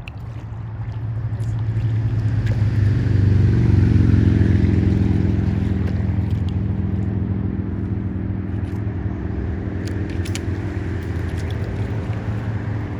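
A motorboat's engine passing by, a steady hum that grows loud to a peak about four seconds in and then slowly fades.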